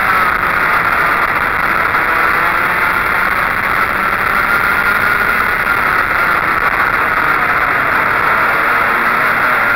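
Racing go-kart engine running hard under the driver, heard on board the moving kart; its note dips and rises a little as the throttle changes through the corners.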